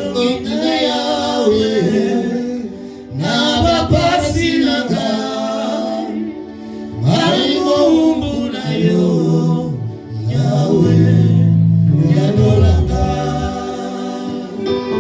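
Gospel worship music: voices singing over instrumental backing with a steady bass line, dipping briefly between phrases.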